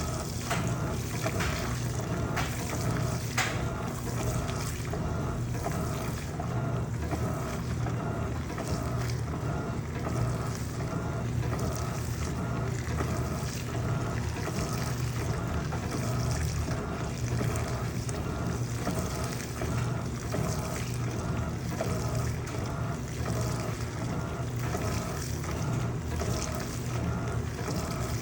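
Electrolux LPE16 washing machine running mid-wash, a steady motor hum with water sloshing in a regular repeating rhythm.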